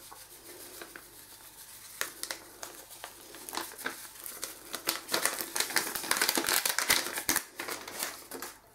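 Small packet of baking powder crinkling and rustling as it is shaken out over the dough in a baking tray, the crackling getting busier about halfway through.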